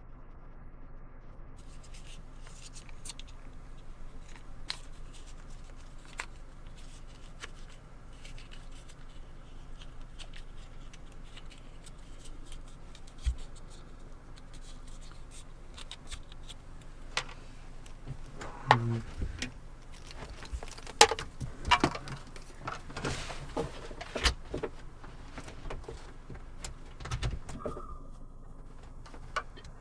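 Handling noises as a large portable speaker and its power cable are handled: scattered clicks, knocks and scrapes over a faint steady hum, getting busier and louder in the last ten seconds or so.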